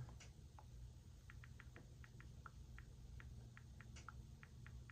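Near silence: a run of faint, quick, light ticks, a few a second, over a low steady hum.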